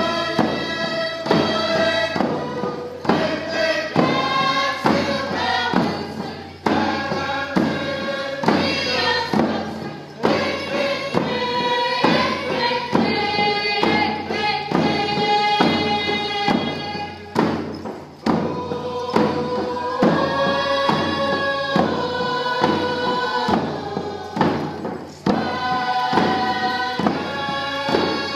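A group of voices singing a traditional Northwest Coast First Nations dance song together, held melody lines over a steady beat of hide-covered hand drums.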